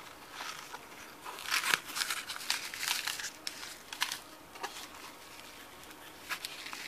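Paper packing and a small sachet crinkling as they are handled and pulled out of a padded camera pouch: a dense run of rustles over about three seconds, then a few scattered crinkles.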